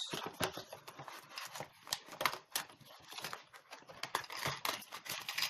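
Packaging being opened by hand: irregular clicks, snaps and rustling of cardboard and plastic wrapping.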